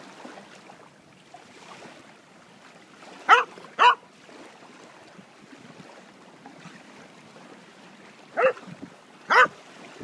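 Corgi barking: four short barks, two close together about three seconds in and two more near the end.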